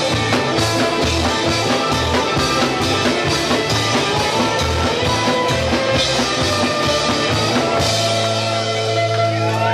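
Live band with upright double bass and acoustic guitars playing an up-tempo song to a steady pounding beat, ending about eight seconds in on a held final chord that rings on.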